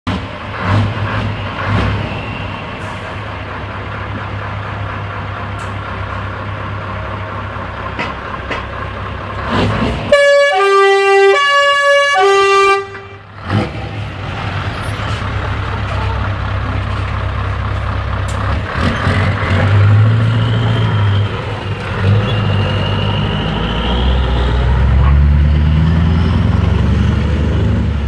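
A truck diesel engine idles with a steady low hum. About ten seconds in, a two-tone locomotive-style air horn sounds for about three seconds, switching back and forth between a low note and a higher note. After that the Scania R580's 16-litre V8 pulls away, its pitch rising as it accelerates near the end.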